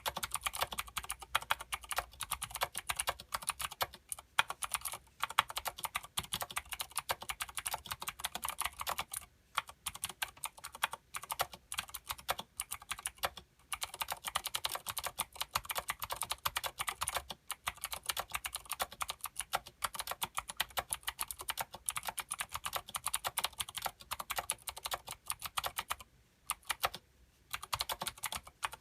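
Fast continuous typing on a Filco Minila mechanical keyboard with clicky Cherry MX Blue switches and thick PBT doubleshot keycaps: a dense stream of sharp key clicks, with a few brief pauses, the longest about three seconds from the end.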